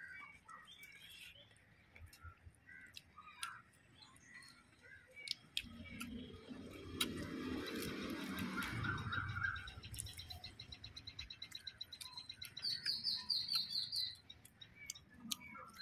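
Small birds chirping around a rural yard, ending in a fast, high repeated trill over the last few seconds. In the middle a broader rush of noise swells for a few seconds and fades.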